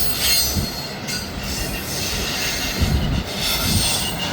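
Train rolling along the track: a steady rush of steel wheels on rail with a high hiss, and a few low knocks as the wheels pass over rail joints.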